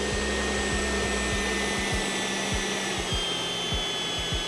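80mm electric ducted fan of a scratch-built F4D Skyray RC jet running with a steady high whine and rush of air while the model sits on the runway before takeoff. The whine drops slightly in pitch about three seconds in.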